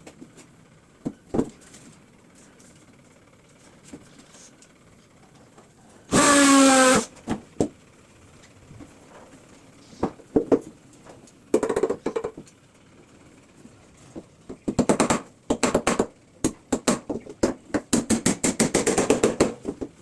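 Woodworking tool noise: a one-second burst of a small power tool whose pitch rises, about six seconds in, then several runs of rapid sharp knocking, the longest near the end.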